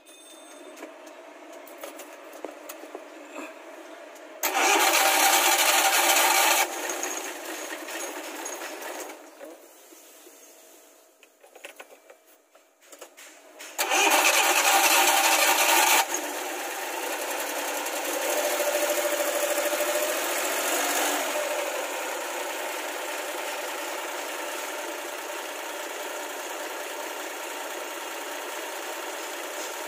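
Suzuki F6 three-cylinder engine being cranked on the starter twice, each time for about two seconds. After the second crank it catches and keeps running steadily. This is its first start after the timing belt was refitted, with the timing belt cover still off.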